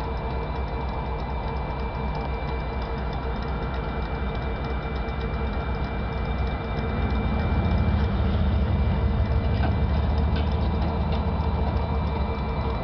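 Diesel-electric freight locomotives, an EMD SD60 and an EMD SD40-2 with two-stroke V16 engines, idling with the train stopped: a steady drone with a thin, high whine over it. About halfway through a deeper rumble swells and holds.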